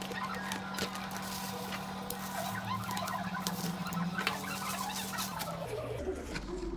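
Paper and bubble wrap crinkling and rustling as a package is unwrapped by hand, in quick clicks and crackles. Behind it are a steady low hum, which stops about six seconds in, and chirping sounds.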